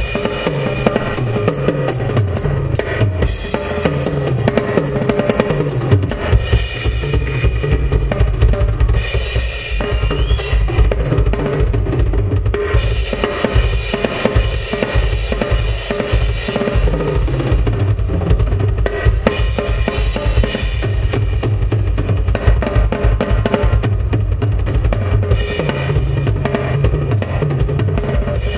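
Rock drum kit played in a solo: a fast, unbroken stream of bass-drum strokes under snare and tom fills, with cymbals ringing over the top.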